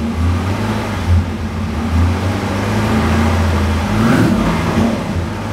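2009 Corvette C6's 6.2-litre LS3 V8 running at idle just after a first start following a long sit, with a steady, even note and a brief change in note about four seconds in. It runs quietly, with no lifter tick or rod knock: the sign of a healthy engine.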